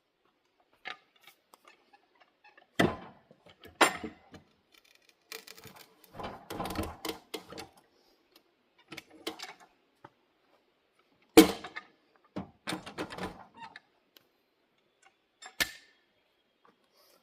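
Irregular knocks and clattering from a log and the sawmill's fittings being handled, with a few sharp bangs and a rattling stretch in the middle.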